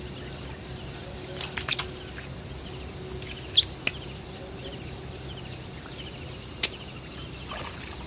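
Insects chirring steadily in one high, unbroken note, with a few sharp clicks, the loudest about three and a half seconds in.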